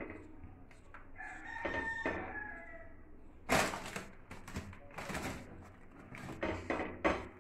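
A rooster crowing once in the background, a single call of about a second and a half starting about a second in. Around it come a few short rustling scrapes as slices of brown bread are set down and shifted on a flat griddle (tawa).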